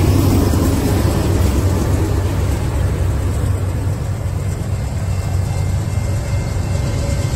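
Freight train passing close by: diesel-electric locomotive engines running with a steady low drone over the rumble of freight cars rolling on the rails, easing slightly in the middle.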